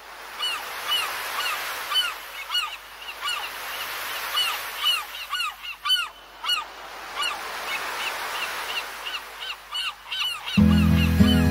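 Seagulls calling again and again, short sharp cries over a steady rush of sea-like noise. About ten seconds in, the song's instrumental intro comes in underneath.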